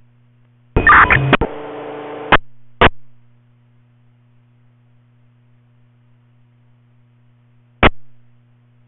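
Radio scanner receiving brief two-way radio key-ups with no words: a loud burst about a second in, then a stretch of open carrier noise ending in a squelch click, and two short squelch bursts later. A steady electrical hum runs underneath.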